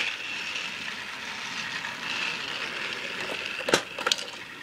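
Battery-powered Trackmaster toy trains running on plastic track, their small motors whirring steadily, with a few sharp clicks and knocks near the end.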